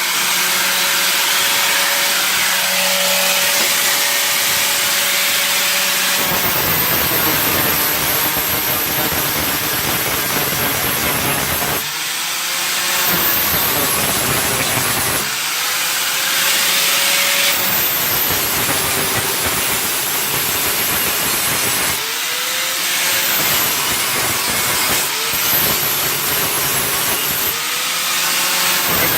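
Angle grinder working a welded sheet-metal patch: several passes of grinding noise a few seconds each. Between passes the grinder spins freely with a steady whine that climbs back up in pitch.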